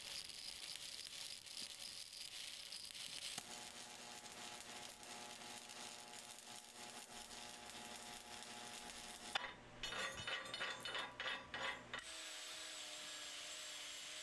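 Stick-welding arc on 7018 electrode, crackling and hissing steadily on a vertical uphill tee-joint pass at about 130 amps. About nine seconds in it turns to a few seconds of louder, irregular bursts. In the last couple of seconds an angle grinder runs with a steady whine.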